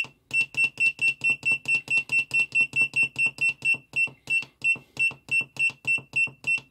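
Sealody SSA60 soldering station's buzzer giving a short, high beep at each press of the down button, about four beeps a second, as the set temperature is stepped down one degree at a time.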